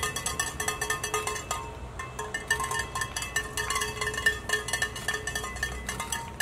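Background music with a quick, busy percussive beat and bell-like tones, briefly thinning out about two seconds in.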